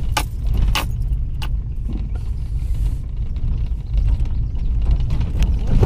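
Car driving slowly over a bumpy dirt road, heard from inside the cabin: a steady low rumble of engine and tyres, with a few sharp rattles in the first second and a half.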